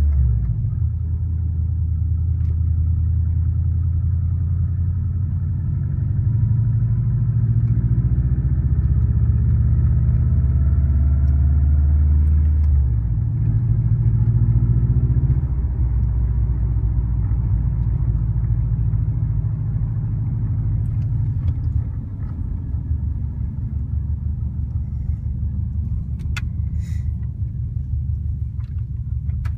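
2004 Subaru WRX's EJ205 turbocharged flat-four engine running at idle, its note shifting a few times and getting a little quieter about three-quarters of the way through. The engine has an exhaust leak at a cracked up-pipe flange, which the owner first took for piston slap.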